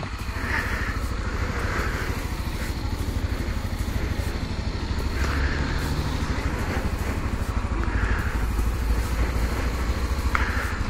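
Motorcycle engine idling steadily while the bike stands at the kerb.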